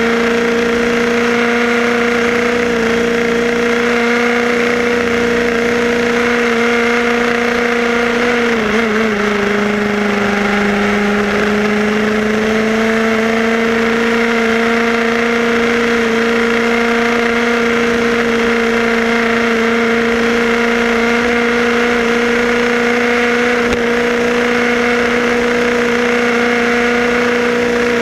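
HPI Baja 5B SS's small two-stroke petrol engine running at a steady high pitch. It eases off about nine seconds in and climbs back to speed over the next few seconds.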